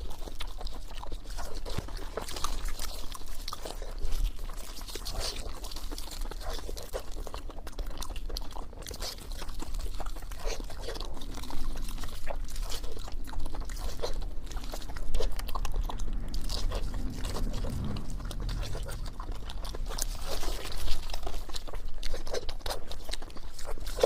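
Chewing and crunching of fried pork, a steady run of many irregular crunches and smacks.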